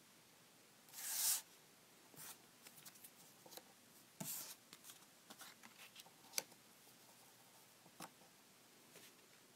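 Paper cutout screens being slid off and laid onto a paper phone mock-up: a brief papery swish about a second in, then scattered rustles and a few light taps of paper and fingers on the card.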